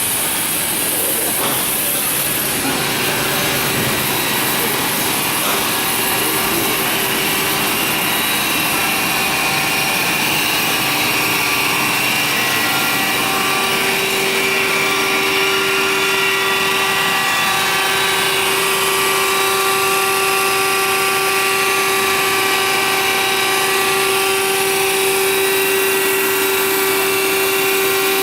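Cincinnati EC380 grinder running steadily as it grinds a test part: a constant hiss from the wheel with a steady hum, which grows stronger about halfway through.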